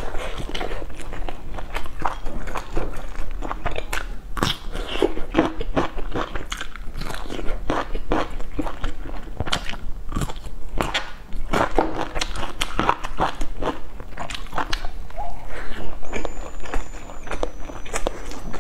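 Close-up crunchy chewing and biting of crisp fried food, picked up by a clip-on mic: a dense, irregular stream of crackling crunches with wet mouth sounds.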